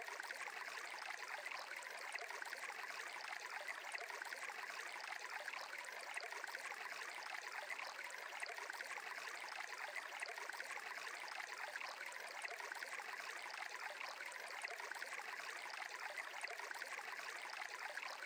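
Faint, steady sound of a flowing stream, unbroken throughout.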